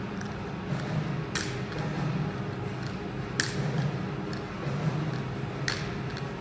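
Loaded barbell being lowered, its plates clinking on the sleeves in short sharp clicks about every two seconds, over a low steady hum.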